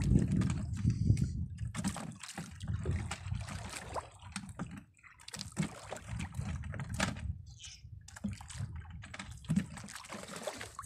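Water sloshing against a small outrigger boat's hull, loudest in the first second or so, with irregular light clicks and taps from a fishing hand line and gear being handled.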